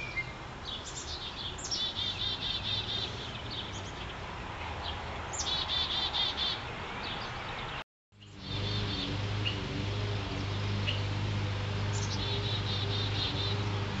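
Black-capped chickadees calling: several quick runs of repeated high notes, with single short chips between them, over a low steady hum. The sound cuts out for a moment a little past halfway.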